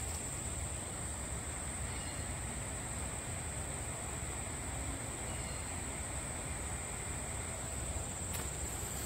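Steady high-pitched insect chorus, one even buzz that does not change, over a low rumble.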